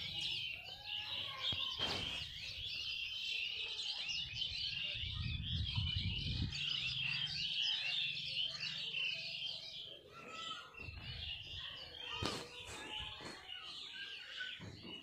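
Many small birds chirping at once, a dense twittering that thins out after about ten seconds. A low rumble comes in about five seconds in, and a few sharp clicks are heard.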